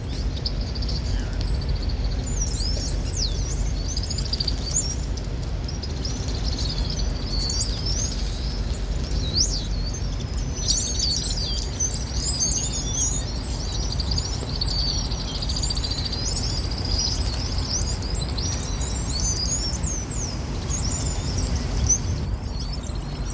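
A large flock of small blackbirds roosting in one tree, many birds chirping and chattering at once in a dense, continuous chorus, over a steady low rumble.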